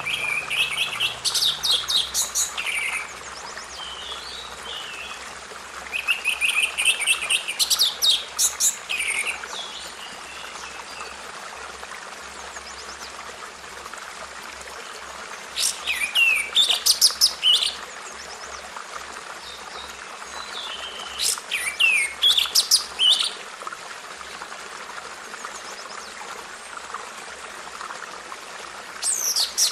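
A songbird singing in repeated phrases of quick, high trills and chirps, each about two to three seconds long and several seconds apart, with fainter calls in between over a steady background hiss.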